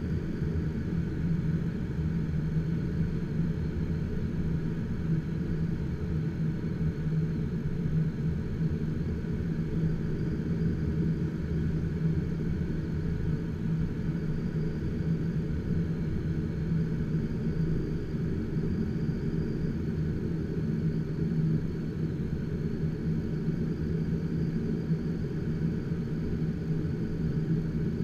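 HK-36 motor glider's engine and propeller running at a steady power setting, heard inside the cockpit as an even drone with a constant pitch that does not change.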